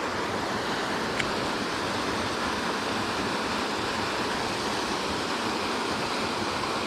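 Small creek waterfall pouring into a pool: a steady rush of falling water, with one faint click about a second in.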